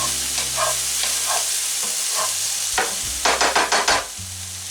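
Chopped peppers, onion, mushrooms, ham and chorizo sizzling in a frying pan in the oil released by the chorizo. A little past three seconds in comes a quick run of about six sharp scrapes or taps of a utensil against the pan.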